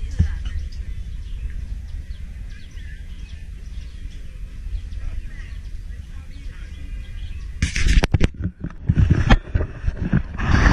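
Outdoor ambience with a steady low wind rumble on the microphone and faint bird chirps. About three-quarters of the way through, loud bumps and rustles of the camera being handled take over.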